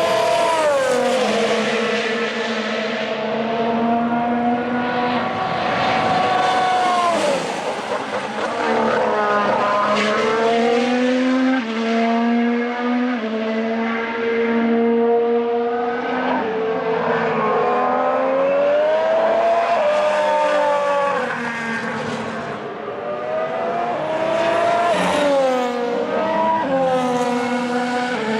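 Honda RA619H 1.6-litre turbo V6 engines of 2019 Formula 1 cars running past one after another. The engine pitch repeatedly falls and climbs again with gear changes, several times over the stretch.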